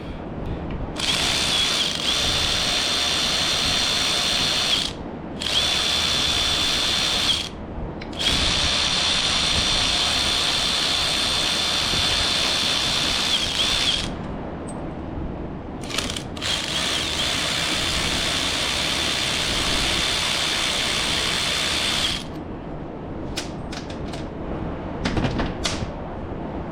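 Handheld cordless power driver spinning with a steady high whine, backing out fasteners. It runs in four long bursts with short pauses between them and stops about 22 seconds in, followed by a few light clicks of handling.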